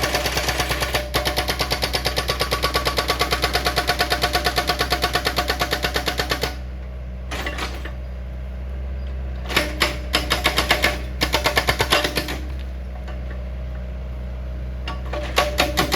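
Excavator-mounted hydraulic rock breaker hammering rock in a fast, even run of blows, several a second, over the steady low hum of the machine's engine. The hammering stops about six seconds in, returns in a couple of short bursts, and starts again near the end.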